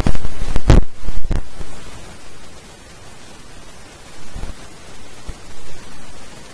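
Three sharp knocks on the microphone in the first second and a half, then steady microphone hiss with a few softer thumps.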